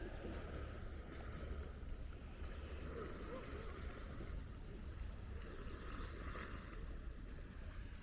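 Wind buffeting the microphone over small lake waves lapping and splashing, a steady rushing noise without any engine tone.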